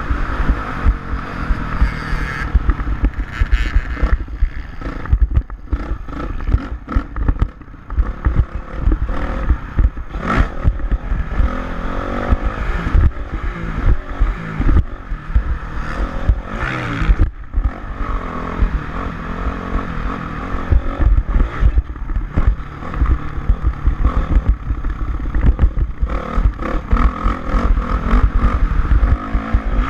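Dirt bike engine running and revving, with a constant choppy low rumble and clatter.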